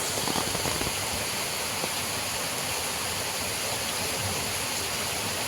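Strong wind rushing through pine trees in light rain: a steady, even rush, with a few soft low thumps in the first second.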